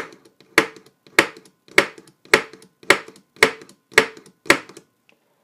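Spring-loaded automatic pin punch firing repeatedly: nine sharp snaps, about two a second, each with a brief metallic ring, as it knocks a metal pin out of a plastic toy joint.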